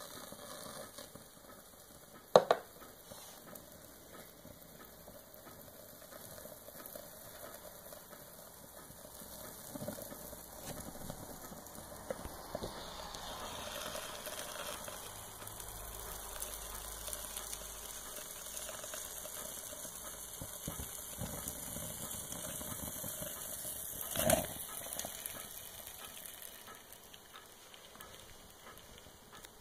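Paper banknote burning, with a soft crackling hiss. A sharp click comes about two seconds in and a duller knock near the end.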